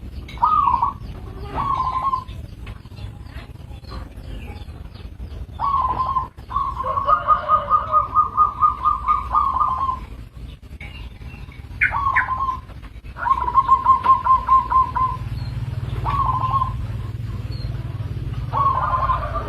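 Zebra dove (perkutut) cooing: several short coos and two longer rapid stuttering runs of coo notes, about four a second, with faint chirps from other small birds.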